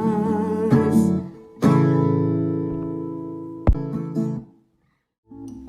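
Acoustic guitar closing a song: a last held sung note with vibrato over strummed chords, then one final strummed chord ringing out and slowly fading. A sharp click follows, a moment of silence, and the next song's guitar starts near the end.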